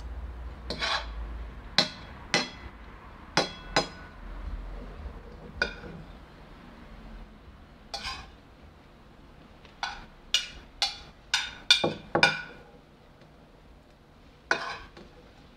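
A metal utensil clinking and scraping against a dinner plate as the last food is gathered up: about fifteen sharp clinks with a short ring, spaced out at first, then a quick run of them about ten to twelve seconds in.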